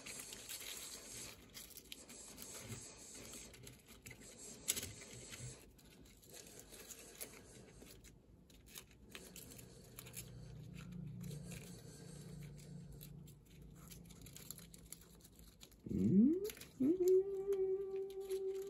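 Paper and cardboard rustling and scraping as the hand-moved paper brushes of a homemade cardboard model car wash rub over a toy car. About sixteen seconds in, the loudest sound comes: a pitch that swoops down and up, then settles into a steady held tone.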